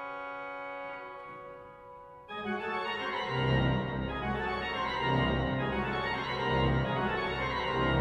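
Pipe organ playing: a held chord fades away, then about two seconds in a loud, busy passage starts suddenly, with deep bass notes joining about a second later.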